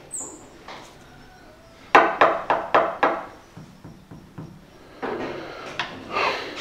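Knocking on a wooden door: a quick run of sharp raps lasting a little over a second, about two seconds in.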